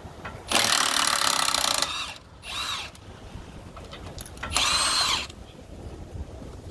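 Milwaukee cordless impact driver run in reverse in three bursts, spinning the wheel nuts off: a long run of about a second and a half, then two short ones.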